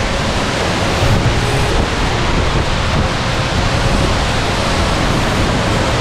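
A large waterfall's steady rush of falling water.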